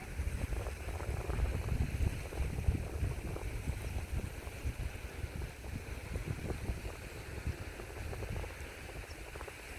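Sea water washing and lapping, with an uneven low rumble that is strongest in the first few seconds and eases off after.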